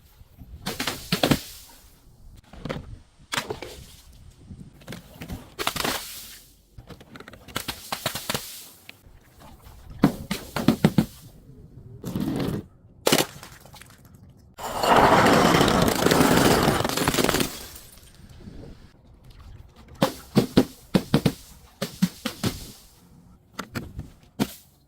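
Crunchy objects being crushed and broken: a run of sharp cracks and crunches at uneven intervals, with one longer crunching stretch of about three seconds past the middle.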